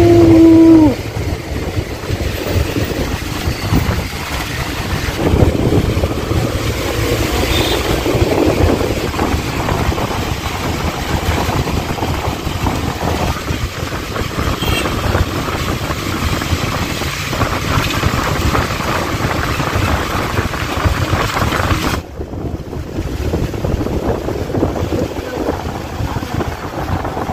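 Cabin noise inside a moving bus: steady engine and road rumble. A short pitched tone drops in pitch right at the start. The noise falls suddenly about five seconds before the end.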